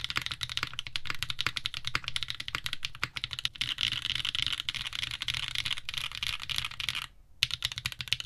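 Fast typing on a mechanical keyboard fitted with Zenclack Turbulence hyper-tactile switches, lubed with Krytox 205g0. It is a dense run of keystrokes, broken by a short pause about seven seconds in.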